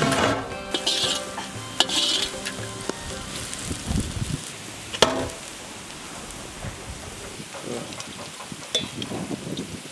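Sliced onions frying in oil in a wok, sizzling steadily while a slotted metal spoon stirs them, with a sharp knock about five seconds in.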